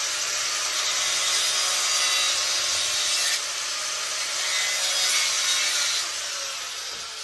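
Handheld electric grinder with a cutting disc cutting through the fuel sending unit's pump hanger, a steady harsh grinding. About six seconds in the cutting stops and the motor winds down with a falling whine.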